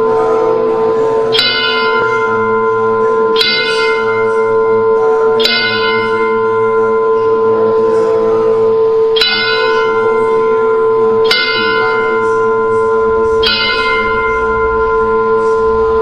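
Fire-temple bell struck six times, about every two seconds with a longer pause after the third stroke. Each stroke rings on over a steady ringing hum.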